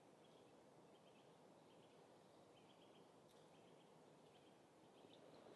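Near silence: faint outdoor quiet with small high chirps of a bird, every second or so.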